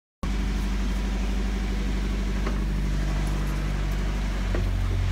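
Boat engine idling steadily with a low, even hum. The audio drops out for a split second at the very start.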